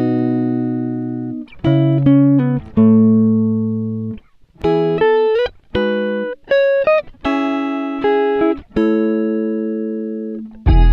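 Slow relaxing instrumental music: a melody of single held notes, each starting sharply and fading away, with short breaks between phrases.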